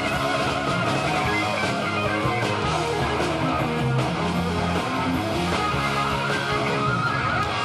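Guitar-led band music playing an instrumental break between verses of a cowboy rodeo song, with no singing.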